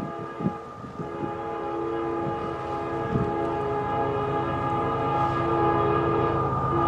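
Diesel freight locomotive's multi-chime air horn held in one long blast while the train's low rumble grows steadily louder as it approaches. A few short knocks come in the first three seconds.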